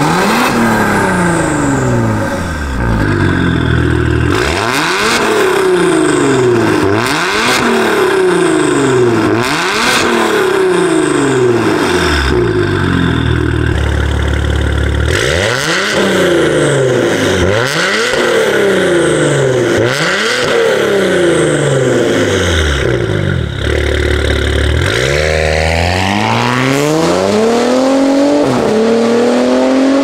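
Maserati Ghibli V6 with a valved catback exhaust and catless downpipes, revved in quick blips about every two seconds, at first with the exhaust valves closed. Near the end it accelerates hard away, the pitch climbing steadily, then dropping at an upshift and climbing again.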